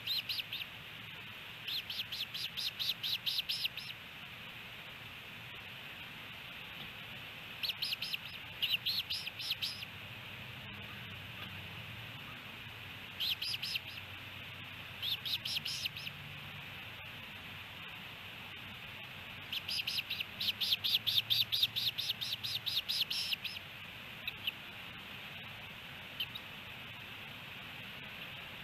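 Osprey calling in repeated bouts of rapid, high whistled chirps, about six chirps a second, each bout lasting one to four seconds with pauses of a few seconds between.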